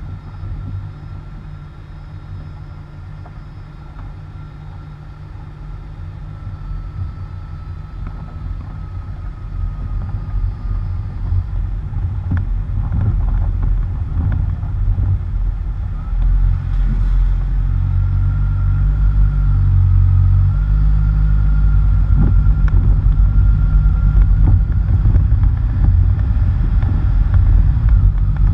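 Low rumble of wind buffeting and tyre noise at a bumper-mounted camera as a vehicle drives over a dirt and gravel road, growing louder as it picks up speed, with a few scattered knocks from the road surface.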